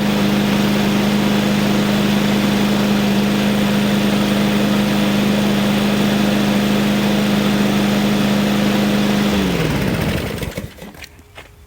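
Briggs & Stratton 725 EXI 163 cc single-cylinder mower engine running steadily at even speed after a carburetor cleaning and new main jet assembly. About nine seconds in it is shut off, and its pitch drops as it winds down to a stop over about a second.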